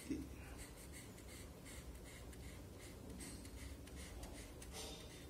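Pen scratching faintly on paper while drawing a long line, in short repeated strokes.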